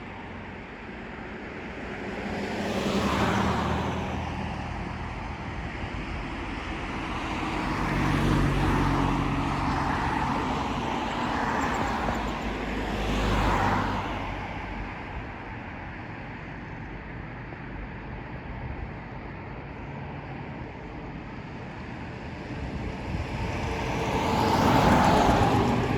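Road traffic passing on a street: several vehicles go by one after another, each swelling up and fading, with the loudest pass near the end.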